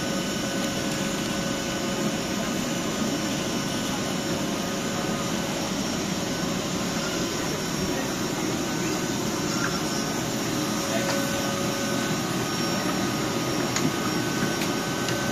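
Steady fan-like hum of a standing ICE high-speed train at an underground platform, with its air-conditioning and cooling fans running, carrying a faint held tone above the noise.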